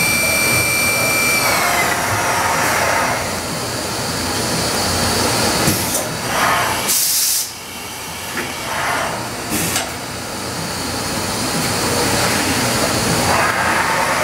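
Hurco BMC30/M CNC machining center's spindle running with a high whine that falls in pitch and winds down about two seconds in. A few short bursts of hiss and knocks follow in the middle, and near the end the spindle spins up again with a rising whine.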